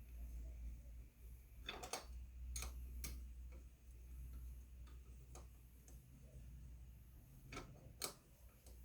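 Scattered light clicks and knocks of tools and metal engine parts being handled during motorcycle engine assembly, about seven irregular taps over a low steady hum.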